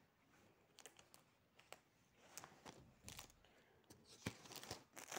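A spiral-bound practice book and its plastic wrapping being handled. Faint scattered rustles and clicks grow into louder crinkling near the end.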